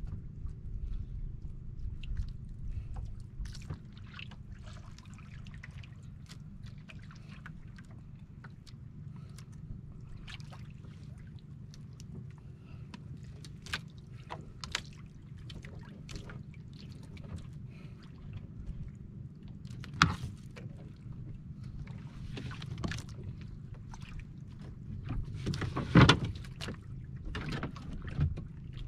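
Water lapping against a small outrigger boat's hull, with scattered knocks and clicks of handling in the boat; a sharp knock about twenty seconds in and another, louder one about twenty-six seconds in.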